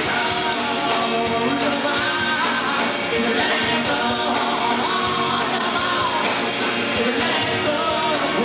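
Rock band playing a song live, full band at a steady loud level, with pitch lines bending between about 500 Hz and 2 kHz that could be a voice singing or a lead guitar.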